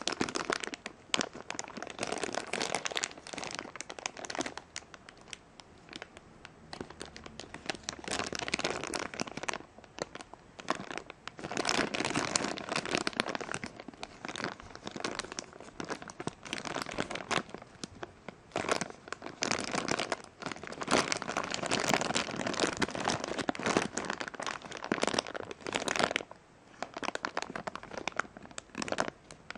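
Thin clear plastic bag crinkling in irregular bursts as hands squeeze and handle the toy figure inside it, quieter for the last few seconds.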